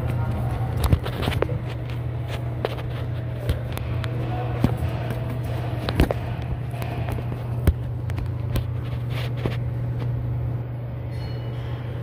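Irregular clicks and knocks as the front tyre and suspension parts are moved by hand, over a steady low hum.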